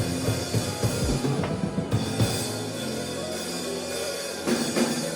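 Afrobeats music playing, with a drum kit's kick and snare and bass.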